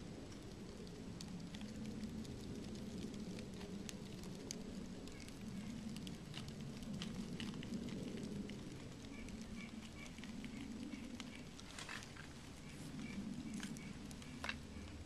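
Kindling fire crackling with scattered small pops in a cinder-block forge as the wood catches, over a low, uneven rumble. Near the end a stick is pushed into the fire with a light knock.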